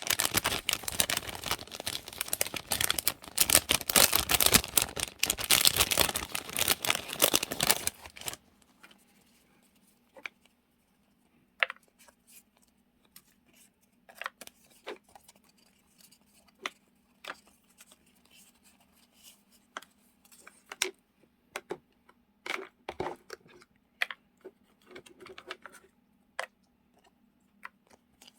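Journaling supplies being handled: dense crinkling and rustling of paper or plastic packaging that stops about eight seconds in, followed by scattered light clicks and taps as items are set down and sorted.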